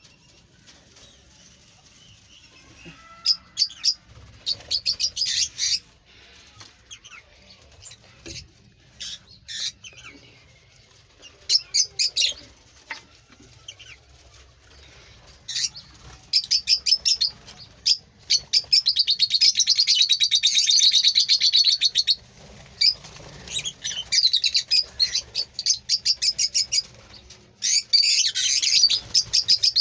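Pet parrots chattering in bursts of fast, high-pitched trilling chirps, sparse at first, then a long loud run of chatter about two-thirds through and another near the end.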